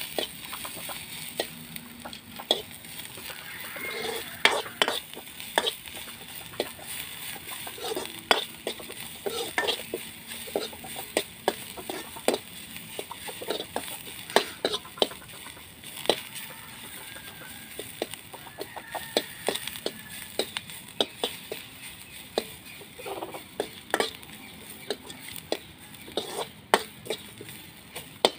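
Steel ladle stirring and scraping dry fish around a steel wok, with irregular metallic clinks against the pan over a faint sizzle of frying.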